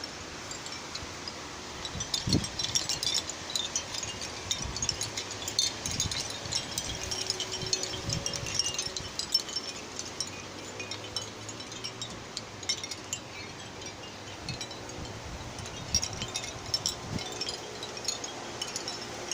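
Seashell wind chime clinking and clattering as the wind stirs it, in busy flurries from a couple of seconds in until about halfway, then thinner, with another flurry near the end.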